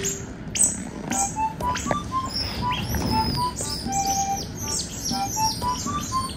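Asian small-clawed otter pups giving many short, high-pitched chirps that fall in pitch, one after another, over a light background melody.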